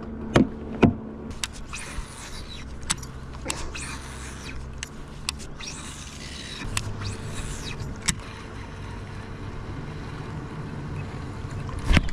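A couple of hard plastic knocks as a boat's livewell lid is shut, then a baitcasting reel cast and wound in, its spool whirring in several bursts of a second or two, over a faint steady low hum.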